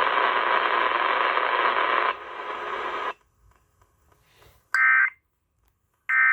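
Weather radio receiver hiss for about three seconds, cut off suddenly. Then two short, buzzy digital tone bursts about a second and a half apart: the SAME end-of-message data bursts that close a NOAA Weather Radio alert.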